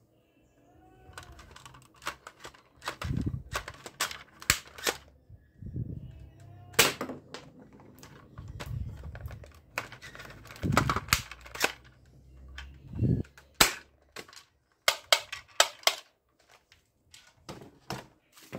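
A plastic toy pump-action gun being pumped and fired over and over: sharp plastic clacks and snaps, with duller pump strokes every few seconds.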